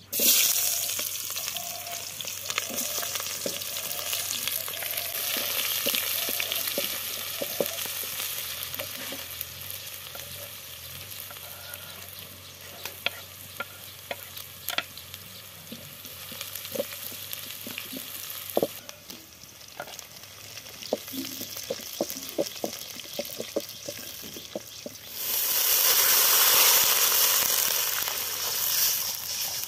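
Sliced red onions hitting hot oil in an aluminium pot over a wood fire, sizzling as they fry, with a wooden spatula knocking and scraping against the pot as they are stirred. Near the end, water poured in from a jug makes a louder rushing splash for about four seconds.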